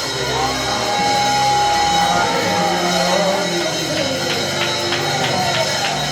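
Live worship band music with sustained chords under a long held sung note. About four seconds in, light percussion ticks join at about three or four a second.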